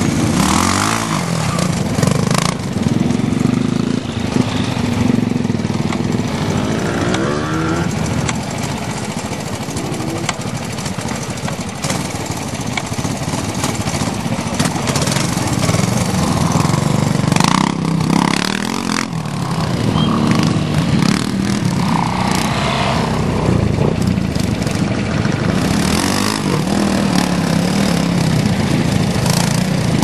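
Classic Honda trials motorcycle engine running at low revs, its note rising and falling with short blips of throttle as the bike is ridden slowly over rocks.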